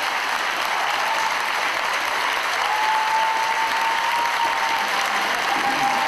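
A large crowd of students applauding steadily, with a thin steady high tone sounding over the clapping for a second or two in the middle.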